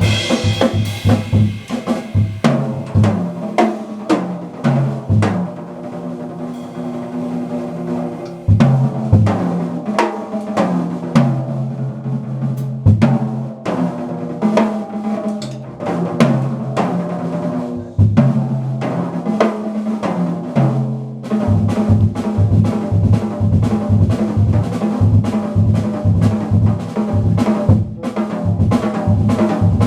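Jazz band playing live at a sound check: a drum kit with snare and bass drum under sustained pitched instruments and a moving bass line, the drums keeping up a steady, even pulse in the last third.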